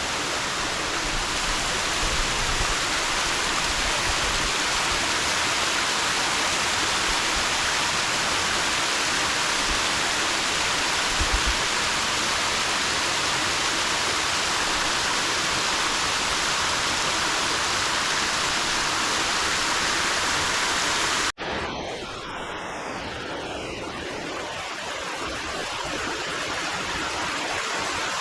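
Waterfall pouring over rocks close by: a loud, steady rush of water. About three-quarters of the way through it cuts off abruptly to a quieter, softer rush.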